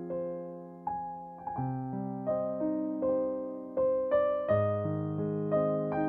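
Background music: a piano playing chords and a simple melody, each note struck and then fading.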